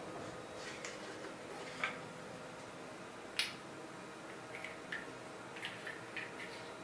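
A few light, scattered clicks and ticks over a faint steady hum, the sharpest click about three and a half seconds in and a run of smaller ticks after it.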